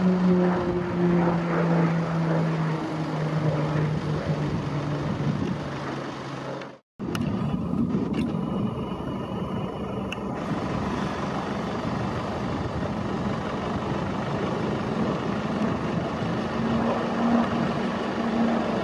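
Single-engine turboprop aircraft flying a display pass: a steady engine and propeller drone whose pitch falls over the first six seconds as it goes by. After a brief cut to silence it returns as a steady, noisier drone that rises slightly in pitch near the end.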